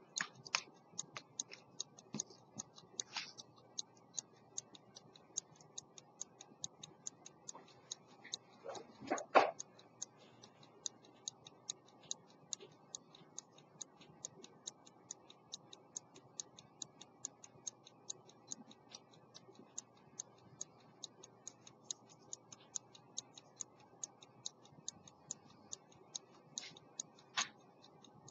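Verge escapement of an 18th-century London silver fusee pocket watch ticking fast and evenly as the movement runs. A single louder thump sounds about a third of the way in.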